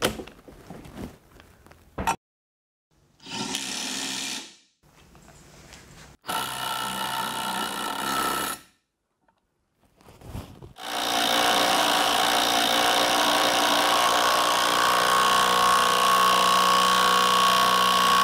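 Bosch GDS 18 V-LI cordless impact wrench driving hex-head lag screws into a wooden beam. A few light handling clicks come first, then two short runs broken by cuts, then one long run of about nine seconds that stops near the end.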